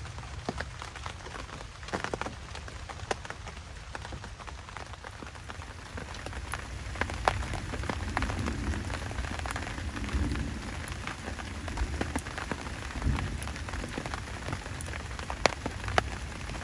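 Rain falling on the fabric of a camouflage hunting ground blind, with many separate drops striking the material over a steady low rumble.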